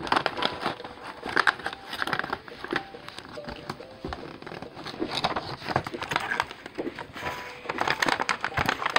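Cardboard toy box being slid open and handled: irregular scraping and rustling of the cardboard, crinkling packaging and scattered sharp clicks and taps.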